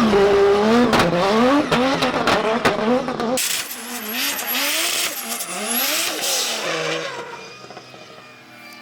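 Ford Barra 4.0-litre inline-six drift car engine revving up and down hard in quick repeated sweeps, with tyres squealing. About three and a half seconds in, the sound becomes more distant and then fades, the revs still rising and falling.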